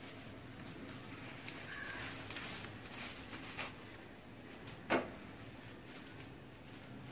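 Faint steady hiss of a gas stove burner while a plastic bottle sleeve is heated over the flame, with a few light ticks and one sharp click about five seconds in.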